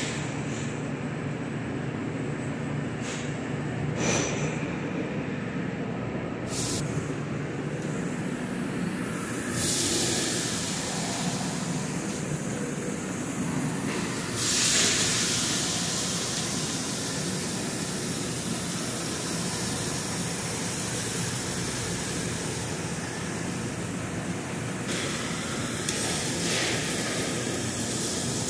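Marinated flank steaks sizzling as they are laid on a hot commercial char-grill, with hissing swells about ten and fifteen seconds in, the second the loudest. A steady kitchen roar sits underneath throughout.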